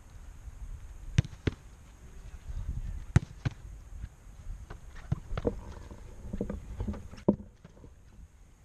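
A football being kicked and slapping into a goalkeeper's gloves: sharp thuds, several in pairs about a third of a second apart, over a low rumble of wind on the microphone.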